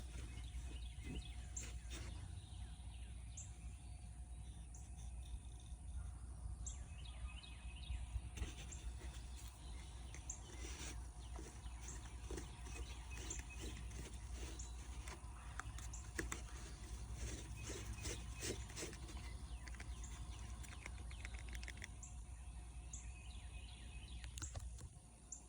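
Faint outdoor ambience: short, high bird chirps scattered over a low, steady hum.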